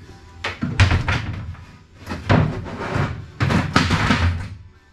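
Pry bar levering up the lid of a wooden OSB shipping crate: a run of about five or six loud wooden creaks and knocks as the lid boards are forced up.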